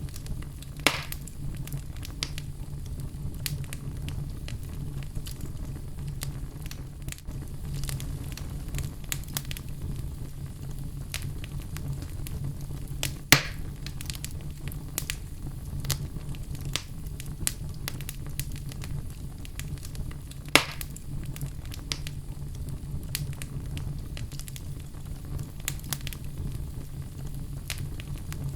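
Wood fire burning in a fireplace, crackling steadily with scattered sharp snaps over a low rumble, and three louder pops: about a second in, near the middle and about two-thirds through.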